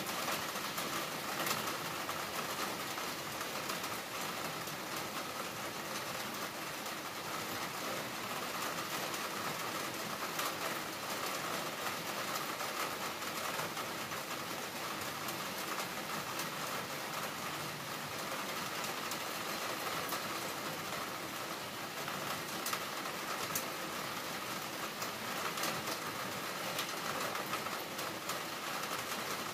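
Steady rain falling, with many small drop ticks and a faint steady hum under it.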